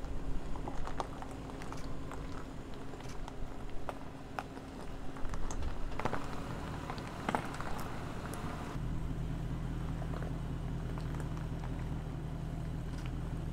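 Land Rover Defender 90's supercharged 5.0-litre V8 running at low revs while the truck crawls over a loose gravel track, the tyres crunching and popping over stones. About nine seconds in, the crunching stops abruptly and a steadier, stronger low engine drone carries on.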